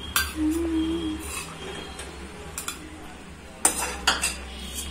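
Metal spoon scraping and clinking against a steel kadhai as cooked leafy greens are scooped out. There are a few sharp clinks, the loudest in a cluster near the end.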